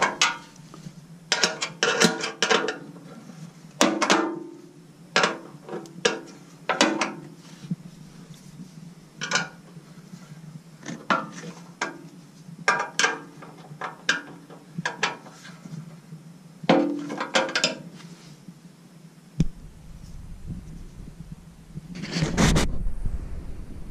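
Steel combination wrench clinking against the bolt heads and sheet-steel inspection panel of a wood chipper as the bolts are spun off, in irregular metallic clicks and clatters. A longer, louder noise comes near the end.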